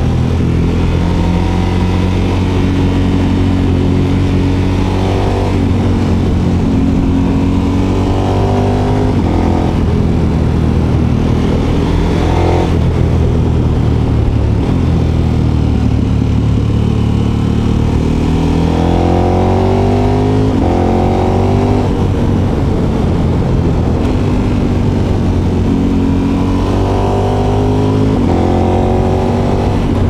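KTM 1290 Super Adventure S's V-twin engine with an Akrapovic silencer, heard from the moving bike. Its note climbs three times under acceleration and drops back between, over a steady low drone.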